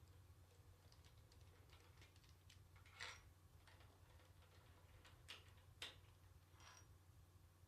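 Near silence over a low steady hum, broken by a few faint clicks and light knocks of parts and tools being handled, the clearest about three seconds in and two close together near the six-second mark.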